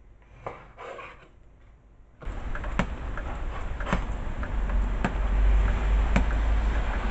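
A knife slicing raw chicken breast on a wooden chopping board, a few soft cuts. About two seconds in it switches abruptly to loud rain with wind rumbling on the microphone, and a sharp tick about once a second.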